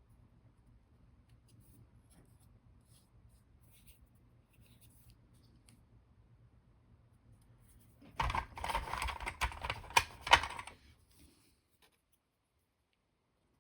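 Close-up handling noise of small model parts and hand tools at a workbench: faint ticks at first, then about eight seconds in a couple of seconds of loud clicking and scraping with a few sharp knocks.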